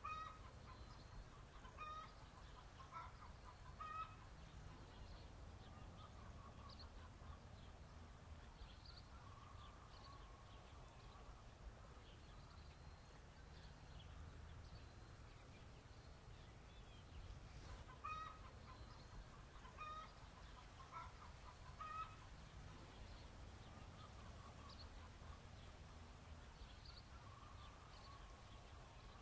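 Faint chickens clucking: short pitched calls in two clusters, near the start and again about two-thirds of the way through, over a low steady rumble.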